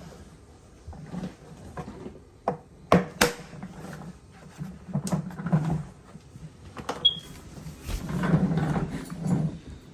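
Plastic shop-vacuum parts being handled and fitted together: irregular clicks and knocks, the sharpest about three seconds in, amid rustling and scraping.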